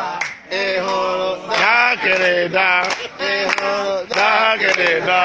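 A man singing, holding long notes whose pitch slides and wavers.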